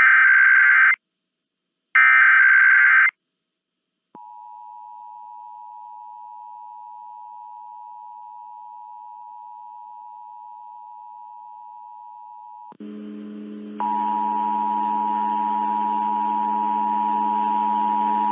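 Emergency Alert System broadcast alert: the last two screeching SAME header data bursts, each about a second long with a second's gap, then the steady two-tone attention signal (853 and 960 Hz), which marks the start of an alert. About 13 s in, a low hum and hiss come in and the two-tone returns louder over them.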